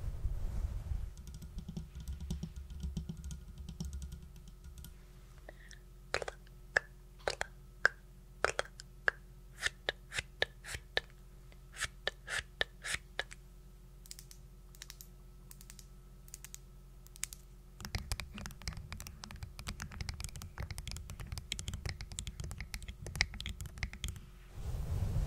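Close-miked ASMR sounds, irregular sharp clicks and taps for several seconds, then soft low rustling close to the microphone near the end.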